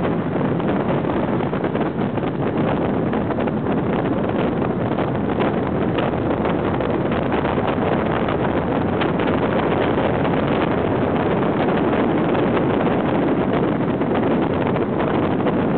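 Steady wind rush on the microphone, with a cruiser motorcycle's engine running beneath it while the bike is ridden along the road.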